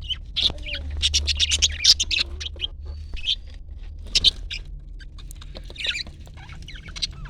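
Parrots chattering and calling in quick high-pitched chirps, thickest in a rapid burst about a second in, over a steady low hum.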